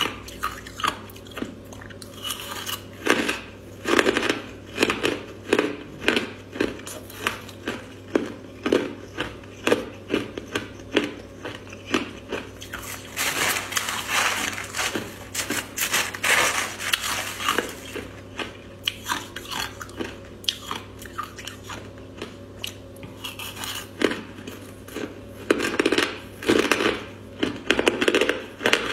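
Close-up crunching of crushed ice being bitten and chewed: a quick, uneven run of sharp crunches, about two a second.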